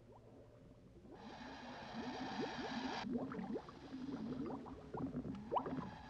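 Scuba diver breathing through a demand regulator underwater. A hissing inhale lasts about two seconds and stops abruptly, and the gurgling, bubbling rush of the exhale follows.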